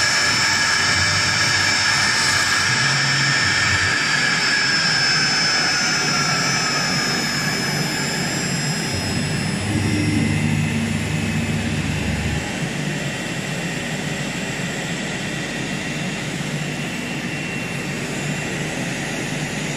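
A CNC engraving machine's spindle whines steadily while its bit cuts into foam; about five seconds in its pitch falls as the spindle slows and fades. A steady machine noise runs on underneath, with a low hum that comes and goes.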